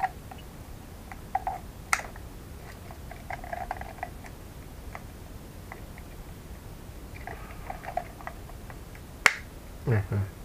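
Hands working at a plastic battery charger and its snap-on plug adapter: scattered light plastic clicks and crinkling, with a sharp click about two seconds in and a louder snap near the end.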